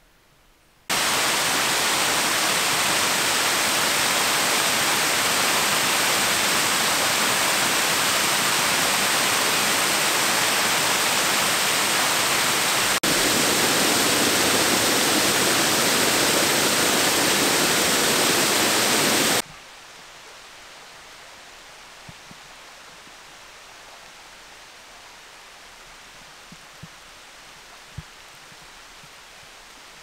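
Waterfall pouring: a loud, steady rush of water that starts suddenly about a second in and cuts off abruptly about 19 seconds in. A much fainter steady rush with a few soft ticks follows.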